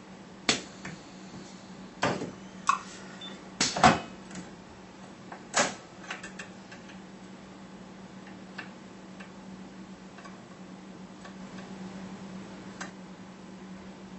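Sharp clicks and snaps from a capacitor-discharge stud welder and its weld head as a threaded stainless stud is welded onto stainless plate, the loudest snap a little under four seconds in, with fewer, fainter clicks later. A steady low hum runs underneath.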